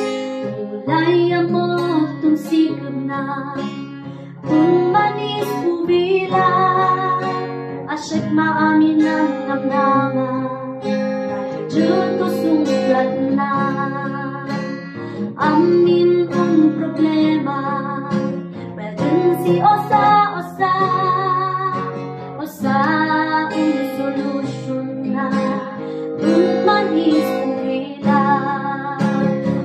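Women singing a Kalinga song as a duet with vibrato, over a strummed acoustic guitar with a capo.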